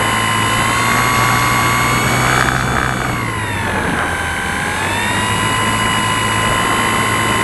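Motor and propeller of an FPV model plane in flight, heard from its onboard camera: a steady high whine over a rush of air. The pitch drops about three seconds in as the throttle eases, then climbs back about two seconds later.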